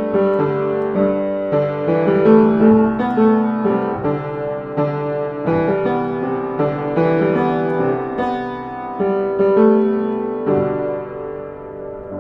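Piano music, a steady run of struck notes and chords; the last note, about ten seconds in, rings out and fades away.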